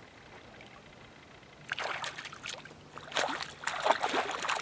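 A hooked fish thrashing and splashing at the water's surface close to the bank. The splashing comes in irregular spells, starting about two seconds in and growing louder toward the end.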